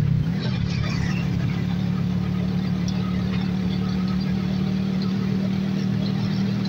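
A vehicle engine running at a steady speed: a constant low hum over road noise.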